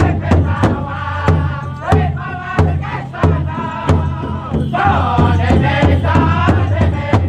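Powwow drum group playing a chicken dance song: several male voices singing together over a large shared bass drum struck in unison about three times a second. A high lead voice opens a new phrase about two-thirds of the way in.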